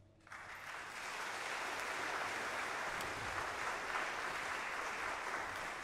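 Audience applause breaking out after a brief silence and continuing steadily.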